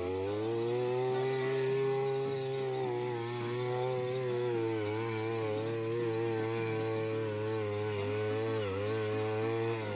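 Handheld two-stroke earth auger running steadily as it bores a post hole in the ground, its engine pitch wavering slightly and dipping briefly about nine seconds in as the bit takes load.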